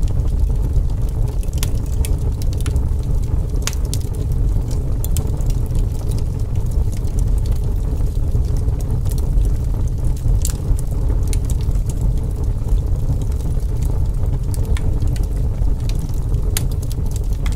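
A steady low rumble with scattered faint clicks and crackles.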